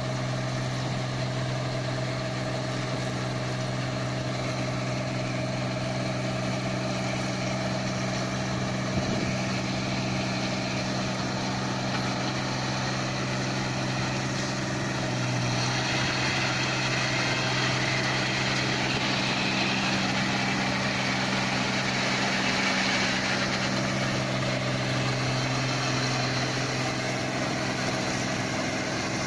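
Hino diesel engine driving a rice mill, running at a steady, slow, even idle; its exhaust is clean, with no smoke. About halfway through, a rush of higher-pitched noise joins in for several seconds and then fades.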